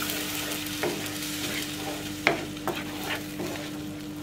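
Tomato sauce sizzling in a nonstick frying pan as a wooden spatula stirs it, with a handful of short scrapes against the pan, the loudest a little past halfway. A steady low hum runs underneath.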